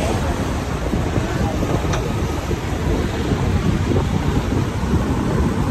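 Wind buffeting a phone microphone on a moving motorcycle: steady, dense noise with the bike's road noise underneath.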